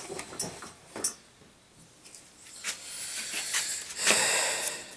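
Paper rustling and crinkling as a folded paper slip is handled and unfolded: a few sharp crackles early on, then a longer stretch of crinkling, loudest about four seconds in.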